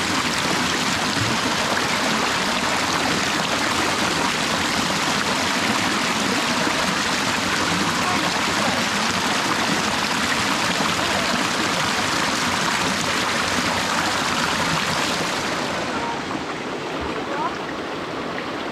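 Creek water running, a steady rushing that thins out and drops slightly in level about sixteen seconds in.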